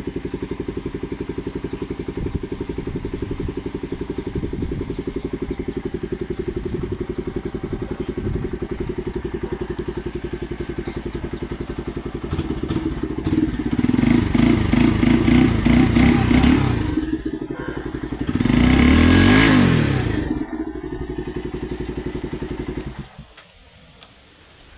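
Bajaj Pulsar NS125's single-cylinder engine on its stock exhaust, idling with a steady beat. About halfway it is revved several times, then given one higher rev that rises and falls. It settles back to idle and is switched off shortly before the end.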